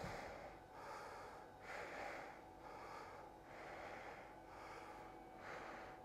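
A man breathing in and out through a 3D-printed respirator mask held to his face. The breaths are faint and airy, about one a second.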